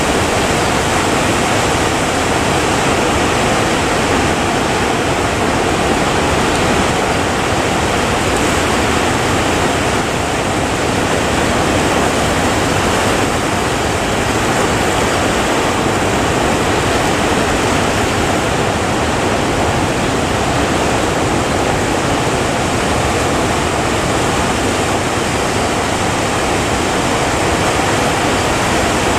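Steady, loud roar of rough sea water and wind, unbroken and even in level.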